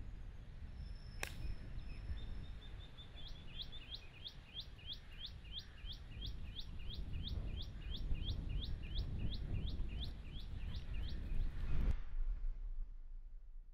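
A golf club strikes the ball off the tee with one sharp crack about a second in. A bird then calls a long run of short, repeated rising notes, about three a second, over steady outdoor background noise, and everything cuts off near the end.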